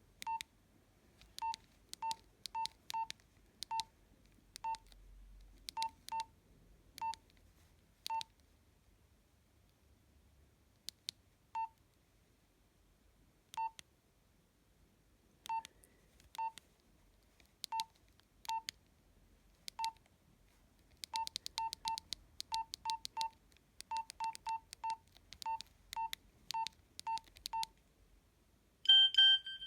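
Nokia 112 keypad beeps: short single-pitch tones, one per key press, at an uneven pace with some pauses and a quicker run of presses towards the end. Near the end a louder ringtone starts playing.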